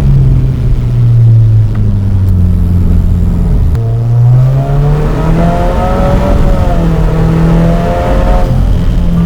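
Subaru WRX's 2.0 turbocharged boxer engine and exhaust heard from inside the car under way; the engine note sags over the first few seconds, then climbs about four seconds in and holds at a higher pitch as the car accelerates.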